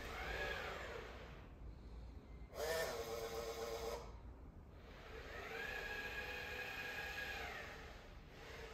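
Robot mop's small motors whining as the iRobot Braava Jet m6 works. The pitch rises, holds and falls twice, and a harsher burst of about a second and a half comes between.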